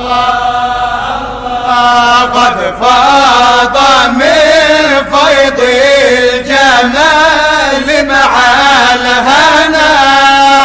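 A voice chanting an Arabic devotional song in praise of the Prophet Muhammad, drawing out a long ornamented line whose pitch rises and falls.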